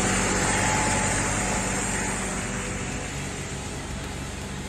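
A motor vehicle's engine running close by, a steady hum under a broad rushing noise that slowly fades.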